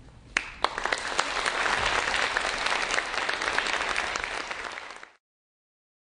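Audience applause for a dance performance: a couple of sharp early claps, then many people clapping steadily. The sound cuts off abruptly about a second before the end.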